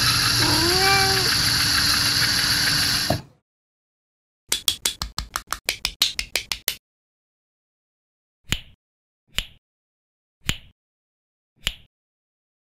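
LEGO Technic car's electric motor and gears running with a steady whir, with a short cat meow about a second in; the whir cuts off after about three seconds. Then a quick run of plastic clicks and four single clicks about a second apart as LEGO Technic parts are snapped together.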